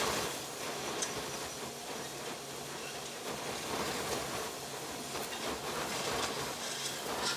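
Strong wind blowing across the microphone: a steady rushing noise with a few brief gusts.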